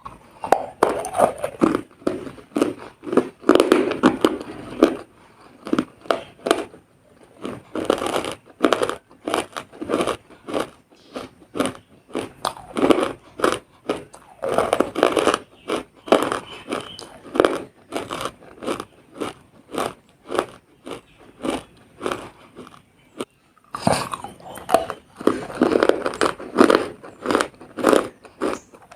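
Close-miked biting and chewing of wet edible chalk (Nakumatt): rapid crisp crunches in clusters, with brief pauses between mouthfuls.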